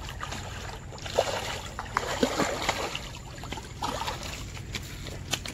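A hooked rohu splashing and thrashing at the water's surface as it is drawn in to the bank, in a run of irregular splashes.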